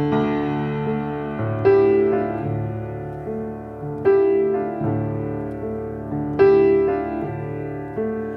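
Slow background piano music: a sustained chord struck about every two and a half seconds and left to fade before the next.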